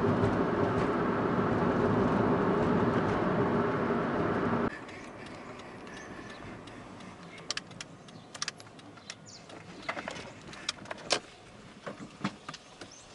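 Car engine and tyre noise heard inside the cabin while driving, steady and loud, stopping abruptly about five seconds in. It gives way to a much quieter running hum with scattered sharp clicks.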